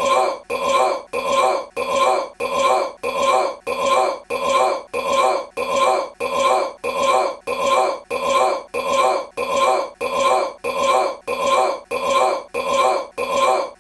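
A man's short burp repeated over and over as an identical loop, about two belches a second at an even pace.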